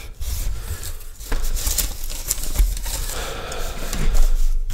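A cardboard shipping box being opened and the small cardboard product boxes inside being handled and set down on a table: rustling and scraping with a few light knocks.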